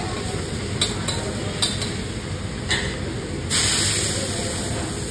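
A metal spatula clinks sharply on a hot iron dosa griddle three times. About three and a half seconds in, a loud hiss starts and fades over a second or so as water hits the hot griddle and flashes to steam. A steady low rumble runs underneath.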